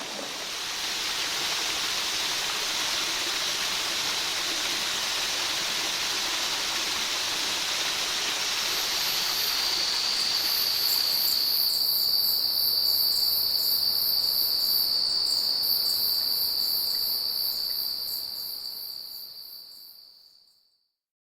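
Tropical rainforest cicada and insect chorus. A dense high hiss of insects gives way about halfway through to one steady, shrill cicada drone with a faster pulsing buzz above it. The chorus fades out near the end.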